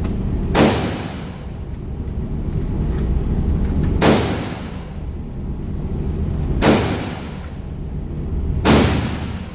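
Four single gunshots, a few seconds apart, each with a short ringing tail, over a steady low hum.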